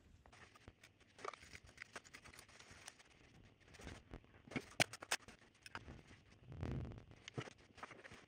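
Quiet bench-work handling sounds: light clicks, taps and scrapes of hand tools and small metal parts being worked, with a few sharper clicks about halfway through.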